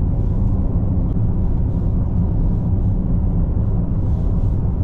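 Steady low road and engine rumble heard from inside the cabin of a moving SUV.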